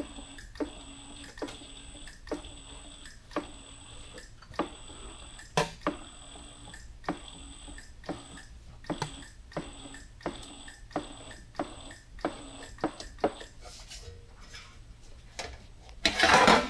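Powered bead roller running as a sheet-metal panel is fed through its rolling dies: a faint steady motor whine with sharp ticks about one or two a second, the drive stopping about 13 seconds in. Near the end, a loud rubbing rush of the sheet-metal panel being handled.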